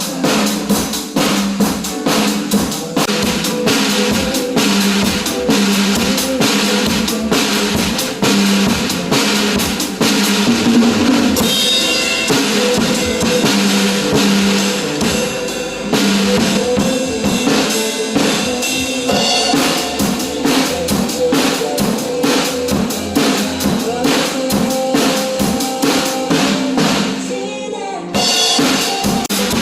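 A drum kit played along to a recorded pop song: a steady beat of kick drum, snare and rimshots over the music. The music thins out briefly near the end before the full beat comes back in.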